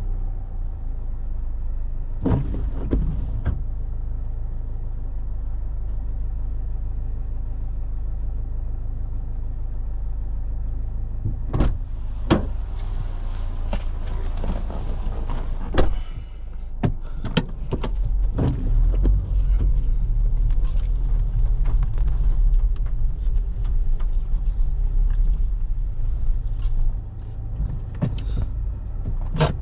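Car driving, with a steady low rumble of engine and road. Scattered sharp knocks and clicks come in a few clusters early on, then grow frequent from about halfway through.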